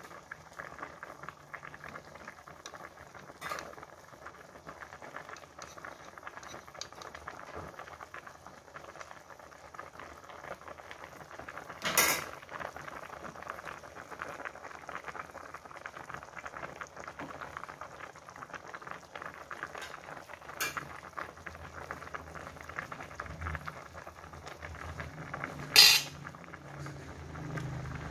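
Patin fish broth boiling hard in a wok, a steady crackling bubble. A metal spatula clinks against the wok a few times, loudest a little before halfway and near the end.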